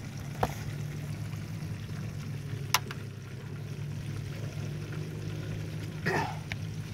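Fish frying in oil in a skillet on a portable butane camp stove: a steady sizzle over a low hum, with a sharp click about half a second in and another near the three-second mark.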